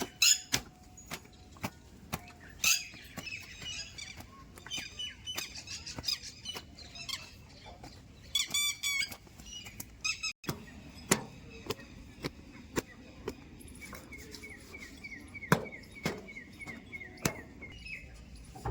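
Birds chirping and calling, with scattered sharp clicks throughout. A quick run of repeated chirps comes in the second half.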